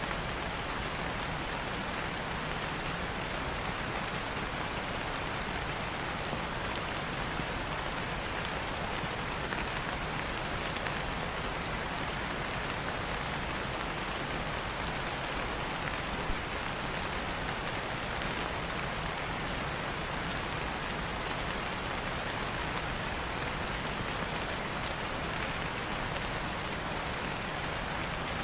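Steady rain falling on leaves, an even hiss with scattered drip ticks throughout.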